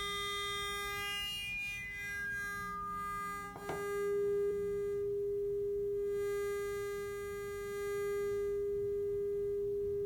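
WOMS Sinulator sine-shaper module's output from a sawtooth input: a steady electronic tone, at first distorted and rich in overtones that shift as the offset is turned. After a click about four seconds in it becomes a nearly pure sine tone. Some overtones briefly return midway, then fade.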